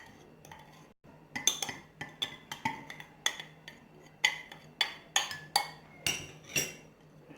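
Metal spoon clinking against a bowl, about twice a second with short ringing tones, while stirring a thick mixture of rock sugar and olive oil.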